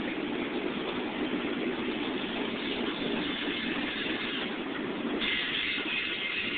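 Freight train's covered hopper cars rolling past, a steady noise of steel wheels on rail. A higher, hissing edge joins the noise about five seconds in.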